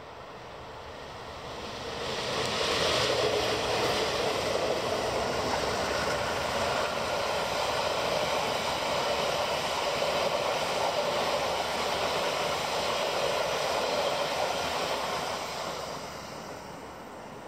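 TranzAlpine passenger train passing close by: the diesel locomotive comes past about two seconds in, then the carriages keep rolling past on the rails for about twelve seconds before the sound fades as the last car goes.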